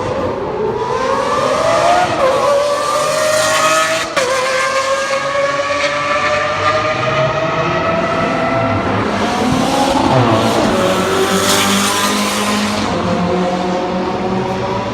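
Supercar engine accelerating hard, the pitch climbing through the revs. A quick gear change cuts the sound about four seconds in, then the revs build again, with another rising sweep around ten seconds in.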